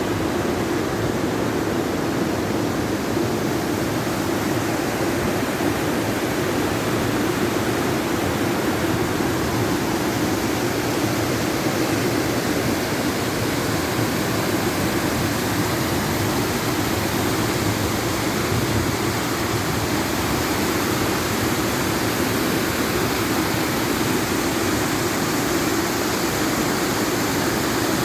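Waterfall rushing, a steady, unbroken roar of falling water with a strong low rumble.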